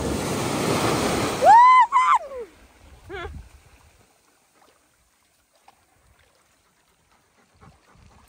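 Small waves breaking and washing up the sand. It cuts off under a loud, high cry that rises and then falls, followed by a shorter second cry, and then near silence.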